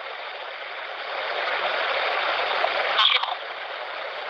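Steady rushing noise on an EVP field recording being played back, slowly getting louder, with a brief, brighter sound about three seconds in.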